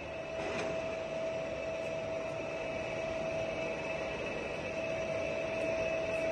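Giana heavy-duty lathe running with a steady hum and a constant high whine, its carriage engaged in longitudinal power feed. A light click about half a second in as the whine gets louder.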